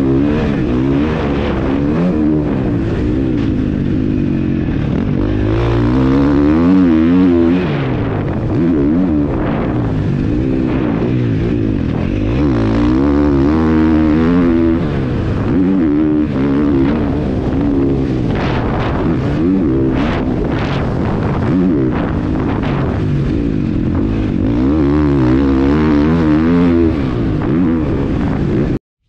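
KTM motocross bike engine revving hard, its pitch rising and falling again and again as the throttle is opened and closed. The sound cuts off suddenly near the end.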